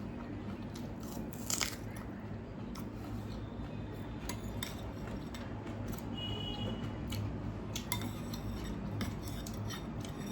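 A person eating close to the microphone: scattered bites, crunches and small clicks against a plate, the loudest about a second and a half in. A steady low hum runs underneath.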